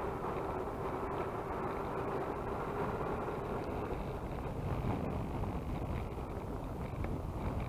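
Multiplex Twin Star BL's twin electric brushless motors and propellers running steadily, with wind rushing over the microphone. The motor tone fades and wavers about halfway through, then comes back near the end.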